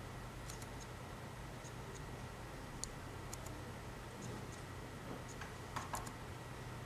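Faint room tone with a low steady hum, broken by a few scattered light ticks, the sharpest two close together near the end.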